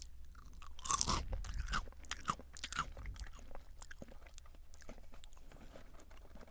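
Mouth chewing crunchy Jagabee lightly salted potato sticks close to the microphone. Loud crunches come during the first few seconds, then softer, steady chewing.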